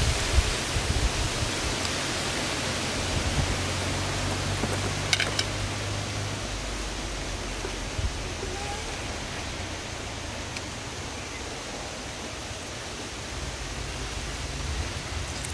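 Steady, even rushing outdoor noise, with a couple of faint brief clicks.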